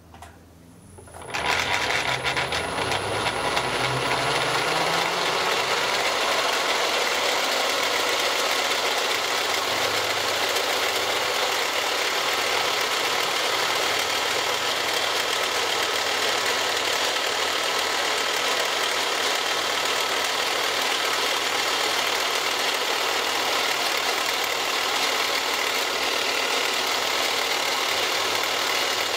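Milling machine's spiral end mill cutting into a polyethylene block. The cutting noise starts about a second in and holds loud and steady as the cutter works through the plastic.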